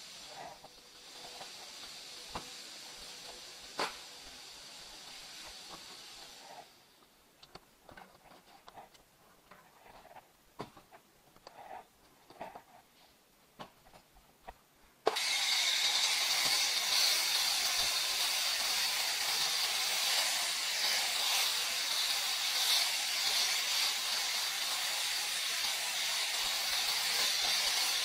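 Scattered small clicks and knocks over a faint hiss, then about halfway through a foam sprayer starts suddenly and runs with a loud, steady hiss as snow foam is sprayed over the car.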